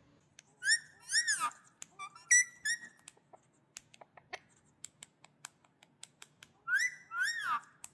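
Pet parrot whistling in three short bursts of rising and falling whistled notes, with many sharp clicks in between.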